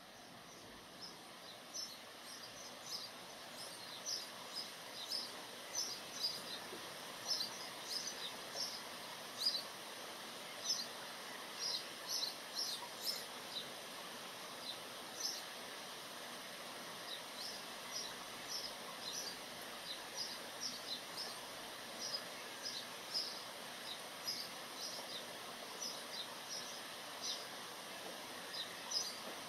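Steady rain falling on forest foliage, fading in over the first few seconds, with a bird chirping in short high notes again and again over the patter.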